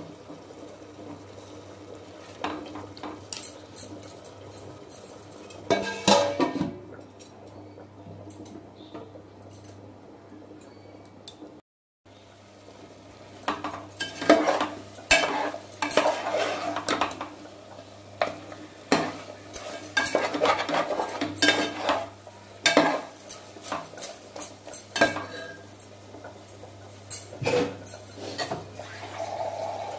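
A perforated steel skimmer scrapes and clinks against an aluminium pot as chicken pieces in thick masala are stirred, over a steady low hum. The strokes are irregular, a few at first and then busy and repeated for about ten seconds, with a brief cut to silence about twelve seconds in.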